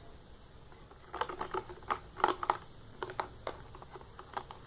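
Glue and water being stirred together in a container: an irregular run of light clicks and taps.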